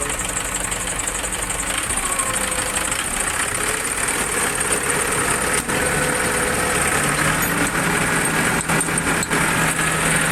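A wheel loader's diesel engine running at a steady idle, started again after running out of diesel once the air was bled from its fuel filter and injector lines.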